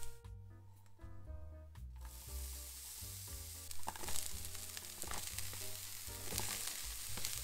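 Chopped onions sizzling as they fry in a hot stainless steel pan, the hiss starting about two seconds in, with a few soft knocks around four seconds in as sliced mushrooms are dropped in. Background music plays throughout.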